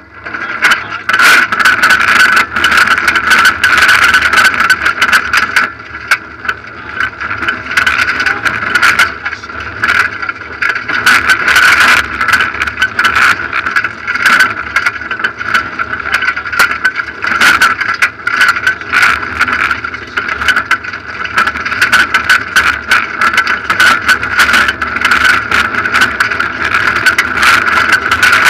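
Rally car's engine running hard on a gravel stage, heard from inside the cabin, with a dense patter of stones and gravel clattering against the car's underside. The sound comes in suddenly right at the start.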